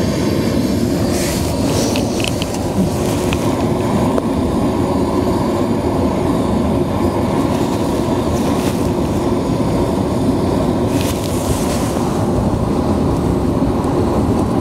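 Steady low rumble of wind and sea surf on a rocky shore, with brief hissing gusts near the start and again near the end.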